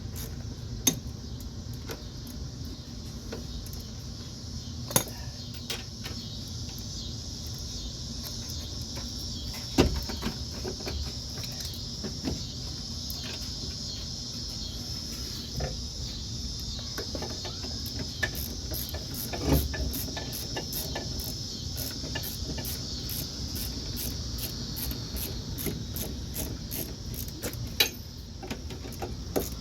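Crickets chirping steadily, with scattered sharp metal clinks and knocks from hand tools and bolts as the four bolts of a front wheel hub assembly are started. About halfway through, a run of quick, even ticks sets in.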